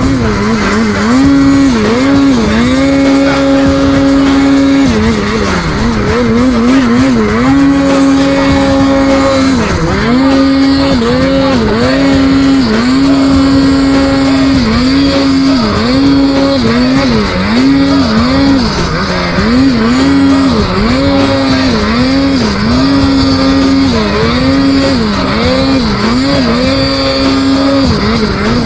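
Snowmobile engine at high revs, held steady and then dropping and climbing back many times in quick succession as the throttle is chopped and opened again while riding deep powder.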